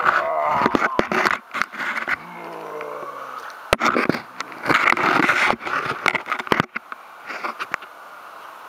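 Knocking, scraping and splashing as a camera and hands move among rocks in shallow creek water while trying to grab a crawfish. A drawn-out, falling vocal exclamation comes about two seconds in. Near the end the handling stops and the steady rush of the creek is left.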